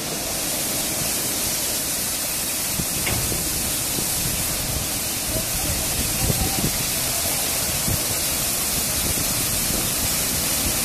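Berry automatic car wash machine spraying water over a car while its side brushes spin: a steady rushing hiss of spray, which strengthens just after the start and then holds even.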